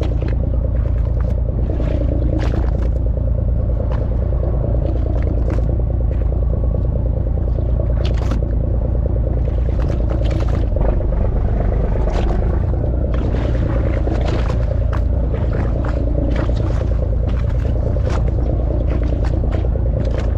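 Fishing boat's engine running at low idle, a steady low rumble, with scattered short scraping and splashing noises on top.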